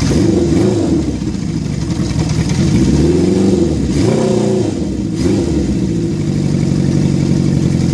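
Honda CB750 Four's air-cooled 750cc inline-four running, blipped several times with the revs rising and falling, then settling to a steady idle about six seconds in.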